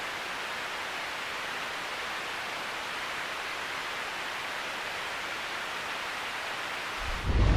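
Steady, even static-like hiss with no pitch to it. About seven seconds in it gives way to louder wind rumbling on the microphone aboard a sailboat at sea.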